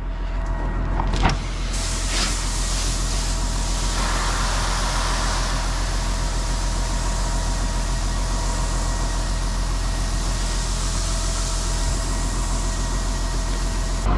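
Tractor engine running at a steady speed. There is a sharp click about a second in, then a steady rushing hiss comes in and grows louder a few seconds later.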